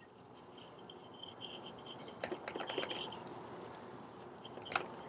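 Faint shaking of a spice shaker as barbecue rub is sprinkled onto a chuck roast: soft rattling and small clicks, busiest about two to three seconds in, with one sharper click near the end.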